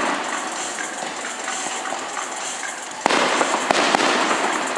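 Fireworks going off: a continuous crackle, then a sharp bang about three seconds in and another just after it, each followed by a louder spray of crackling.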